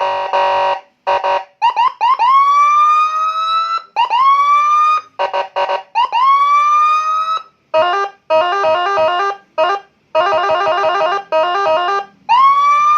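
Custom electronic police-escort siren with Whelen-style tones cycling through its patterns. It gives short blips, then several whoops that climb and hold, then two stretches of fast stepped warble, and climbs into another whoop near the end.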